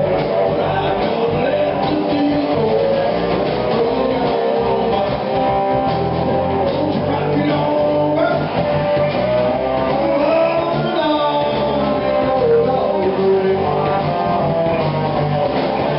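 Live rock and roll band playing with two electric slide guitars over a drum kit, and a man singing into a microphone.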